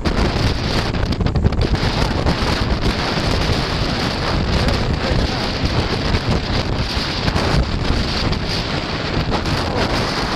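Strong gusting wind buffeting the microphone, a continuous low rumble of wind noise, with the rush of storm-driven waves beneath it.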